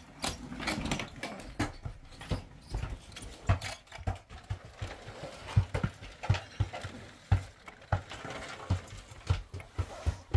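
A run of irregular knocks and low thumps, several a second, with rustling between them, like things being handled and set down.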